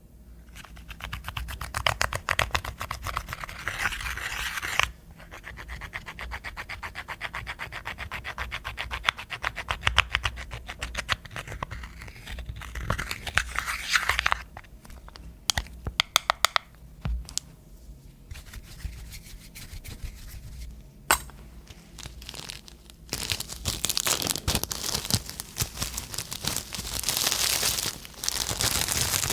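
Clear slime being squeezed and stretched by hand, with dense crackling and popping in several spells separated by short pauses.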